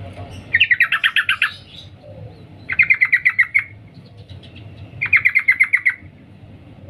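Female yellow-vented bulbul (trucukan) giving her call to a male: three bouts of rapid repeated 'cuk cuk' chattering notes, about two seconds apart, each about a second long.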